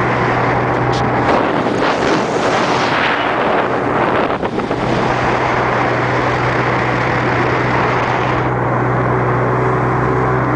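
Jet boat under way: its engine runs with a steady low hum under a broad rush of noise, and wind buffets the microphone.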